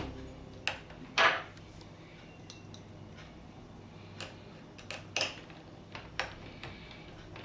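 A few separate clicks and knocks over a faint background hiss, the loudest and longest about a second in.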